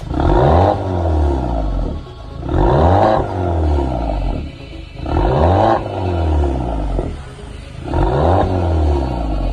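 Volkswagen Tiguan 2.0-litre turbo four-cylinder revved through an aftermarket stainless-steel mid pipe and valved muffler: four short blips about every two and a half seconds, each rising in pitch and dropping back to a lower running note between them.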